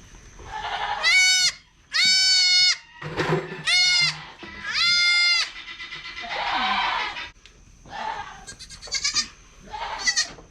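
Goats bleating: four loud, high-pitched calls in the first half, each about half a second long, then softer bleats near the end.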